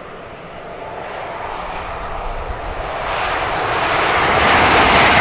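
A train approaching: a rushing rumble that grows steadily louder and swells sharply about three seconds in.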